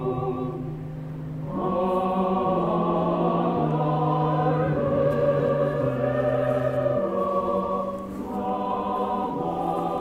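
Choir singing a slow hymn in long held notes, the melody moving step by step from one note to the next, with a brief dip in level about a second in.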